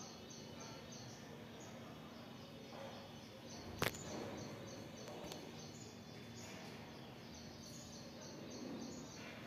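Batashas deep-frying in hot oil in an iron kadhai: a faint, steady sizzle. One sharp knock comes about four seconds in, and a faint high chirping repeats about three times a second through most of it.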